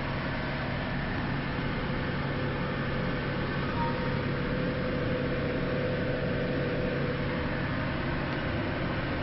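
Steady hum and noise of a ship's engine running, heard inside the wheelhouse. A faint steady whine joins for a few seconds in the middle.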